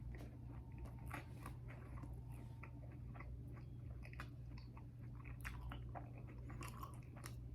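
A person chewing a waffle fry with the mouth close to the microphone: faint, irregular small clicks and smacks of chewing, over a steady low hum.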